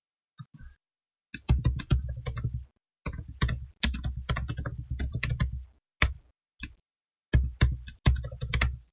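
Computer keyboard typing: runs of quick keystrokes starting about a second and a half in, broken by short pauses between words.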